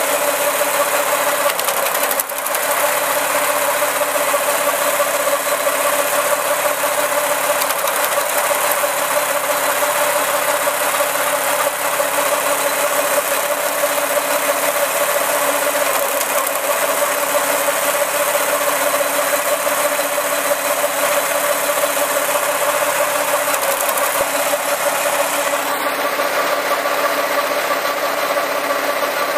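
Single-cylinder 6.5 HP petrol engine of a homemade drum wood chipper running steadily.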